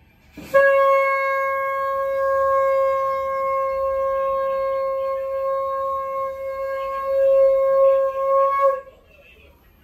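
Conch shell (shankh) blown in one long, steady note lasting about eight seconds. It swells a little near the end, then cuts off abruptly.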